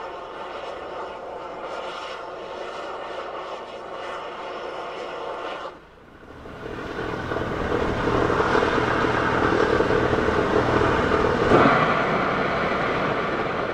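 Starship Booster 7 venting gas during a cryogenic test depressurization: a steady rushing roar. It drops off briefly about six seconds in, then swells louder.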